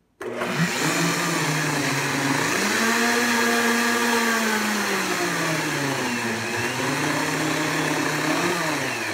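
Blendtec blender running its smoothie cycle with soapy water to clean the jar, churning it into foam. The motor starts abruptly, its whine rises in speed about two and a half seconds in, drops back around five seconds, and starts winding down near the end.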